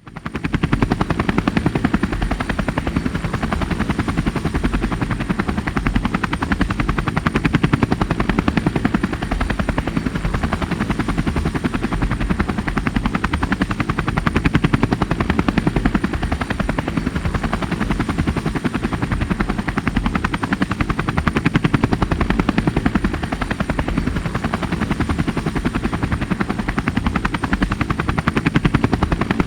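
Helicopter rotor chopping steadily in rapid, even beats, with a faint high turbine whine above it.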